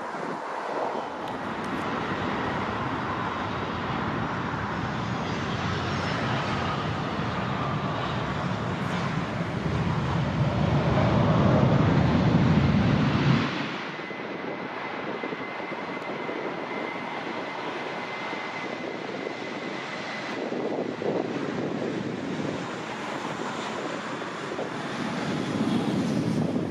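Jet airliner engines at takeoff thrust: a loud, deep rumble that builds to a peak and cuts off suddenly about halfway through. After it, quieter jet engine noise with a steady high whine, swelling again near the end as a second airliner rolls on the runway.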